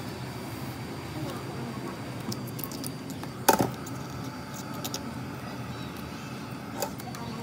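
Metal scraper scratching leftover glass shards and adhesive off the back housing of an iPhone 11, with one sharp crack about halfway through and a smaller click near the end. A steady low hum runs underneath.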